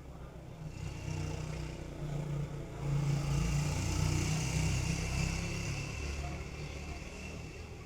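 A vehicle passing by: a rumble with tyre-like hiss that swells over a few seconds, peaks mid-way and fades away.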